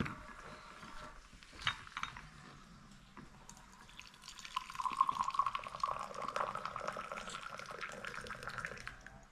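A glass clinks down on a saucer at the start. About halfway through, liquid runs from a samovar's tap into a glass for several seconds, its pitch slowly rising as the glass fills.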